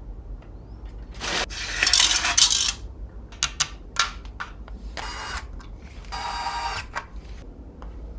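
Hard parts being handled and fitted while a PC is assembled: a scraping rustle about a second in, then a run of sharp clicks and two short metallic rattles.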